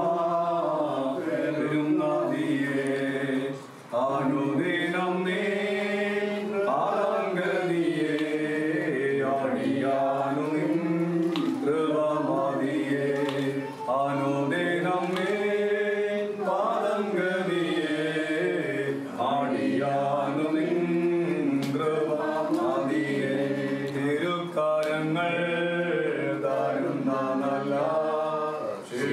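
Voices chanting a slow Orthodox liturgical hymn in long, bending held notes over a steady low drone.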